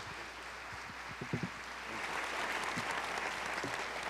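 Audience applauding in a lecture hall, a steady dense clatter of many hands.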